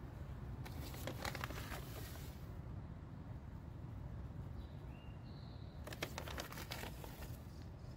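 A bag of mycorrhizal inoculant rustling and its granules pattering out as it is shaken over a soil trench, in two bursts about a second in and about six seconds in. A bird chirps briefly between them.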